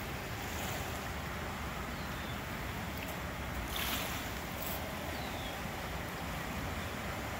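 Wind buffeting the microphone over the steady rush of a flowing river, with a short brushing noise about four seconds in.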